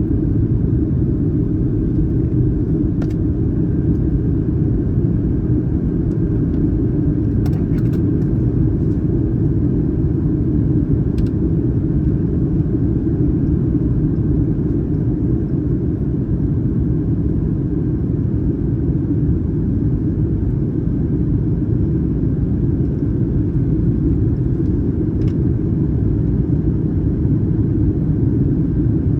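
Cabin noise inside a Boeing 737-900ER airliner in flight: a steady low noise of the jet engines and airflow, heard from an economy window seat. A few faint clicks come through now and then.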